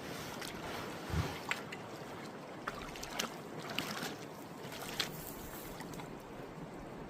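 Creek water lapping and splashing around an inflatable packraft, with scattered light clicks and a dull thump about a second in.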